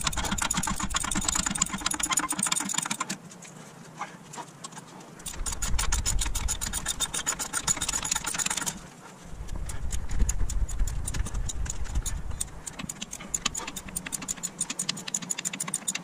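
Hand ratchet clicking in quick runs, worked back and forth in short strokes to loosen the hub-to-knuckle bolts, with a pause of a couple of seconds about 3 s in and a brief stop near 9 s.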